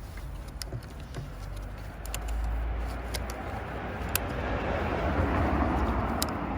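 A passing road vehicle, its noise swelling from about two seconds in and easing near the end, with a few sharp small clicks over it.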